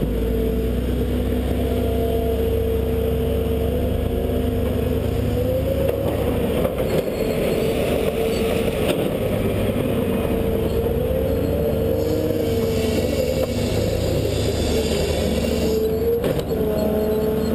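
Excavator's diesel engine and hydraulics running under load as the arm digs, swings and dumps dirt, the engine note rising and falling with each move. A few brief knocks come from the bucket and dirt.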